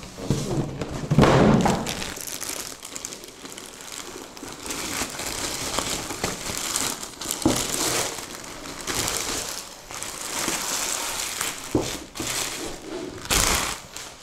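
Pink anti-static plastic bag crinkling and rustling as it is pulled off a rack-mount router. A heavy thud comes about a second in and another thump near the end.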